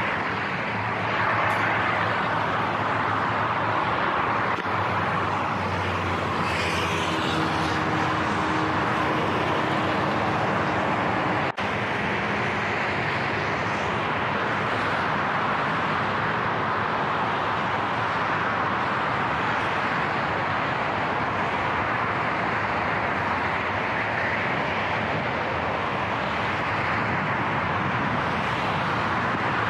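Steady rush of motorway traffic from below a footbridge: tyre and engine noise of passing cars and vans. A passing vehicle's engine hum stands out briefly about six to eleven seconds in, and the sound drops out for an instant near the middle.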